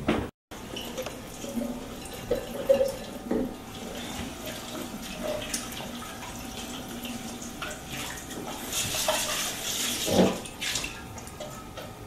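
Water running from a kitchen tap into a stainless steel sink while a cup is washed by hand, with small knocks of the dishes. The water rushes louder for about a second around nine seconds in.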